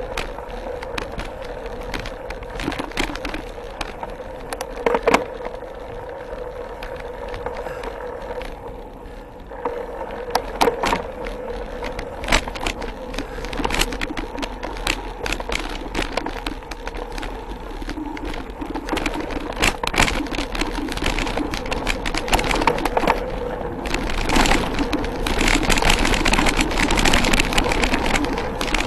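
Mountain bike riding a dirt forest trail, heard from a handlebar-mounted camera: tyres running on dirt with frequent clicks and rattles from the bike over bumps, growing louder and noisier in the last few seconds.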